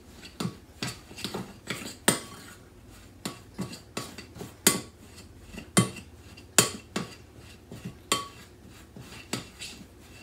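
A spoon knocking and scraping against a glass mixing bowl while stirring a thick flour-and-yogurt dough. Irregular clinks come about once or twice a second, some with a short glassy ring.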